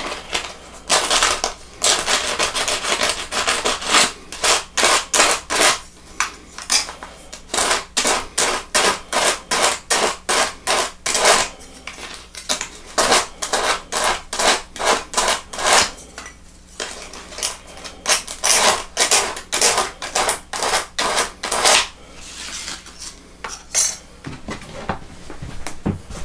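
A small part rubbed back and forth on a sheet of sandpaper, a rasping scrape at about two strokes a second, roughing up the surface for an epoxy bond. The strokes pause briefly partway through and stop a few seconds before the end.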